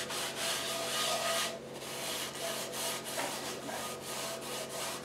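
Regular table salt scrubbed around the inside of a Lodge cast iron skillet with a folded paper towel: a gritty rubbing in repeated strokes. The salt is soaking up the grease and grime left in the pan.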